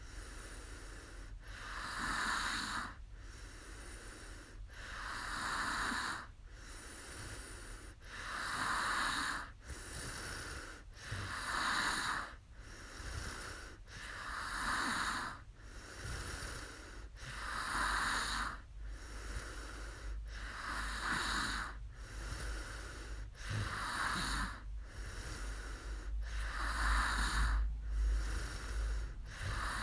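A sleeping woman snoring, a noisy breath about every three seconds in a slow, even rhythm.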